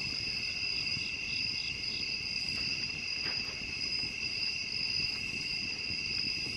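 Steady night-time chorus of crickets trilling continuously, with a second insect adding a short run of pulses, about four a second, roughly a second in.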